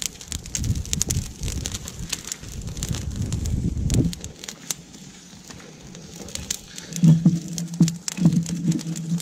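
Dry twigs and kindling crackling and snapping as a small campfire catches, many small sharp pops throughout. A low rumble runs under the first four seconds, and a low steady tone comes in about seven seconds in.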